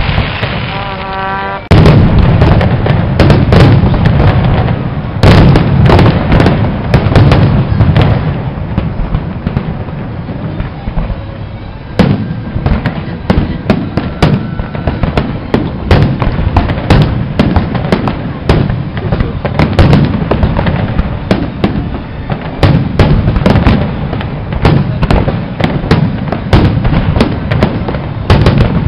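Fireworks display: aerial shells bursting in a dense, near-continuous barrage of booms and crackles, the heavy volley starting suddenly about two seconds in.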